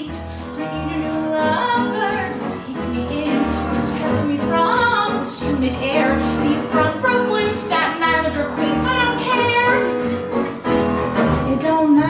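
A woman singing a cabaret song live, backed by a band of piano, guitar, bass and drums with a steady beat.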